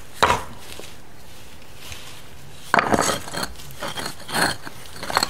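Small flat rocks set down and slid into place on a large stone slab: a sharp clack of stone on stone just after the start, then, from about three seconds in, a run of knocks and scrapes as more rocks are fitted.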